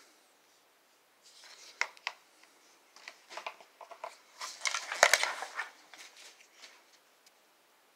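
Footsteps scuffing and crunching on a gritty concrete floor, with scattered clicks of handling noise. The sounds are densest and loudest around the middle, with one sharp knock about five seconds in.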